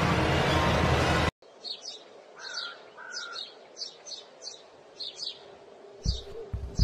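A loud low drone that cuts off suddenly about a second in, giving way to morning birdsong: a string of short high chirps with a couple of brief whistled notes, and a few low thumps near the end.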